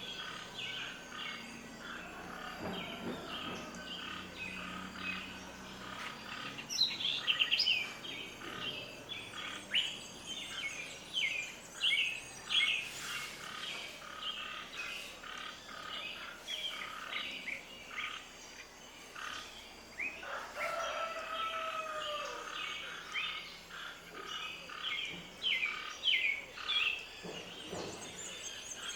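Many birds chirping and calling, with a dense run of short, quick chirps throughout. Around two-thirds of the way in there is a lower call that slides down in pitch.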